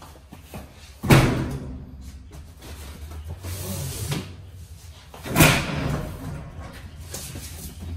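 Cardboard cases being handled and set down, with two loud thumps, one about a second in and one just past halfway, and softer scraping and rustling of boxes between.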